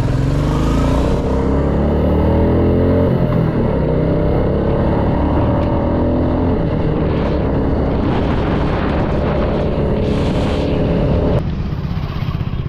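Single-cylinder motorcycle engine pulling away and riding along. Its pitch rises in steps as it accelerates through the gears, then holds steadier. Near the end the engine sound cuts off abruptly to a quieter outdoor background.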